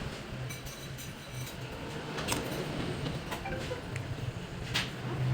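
Eating sounds: a few sharp clicks of cutlery against a plate over a low background hum.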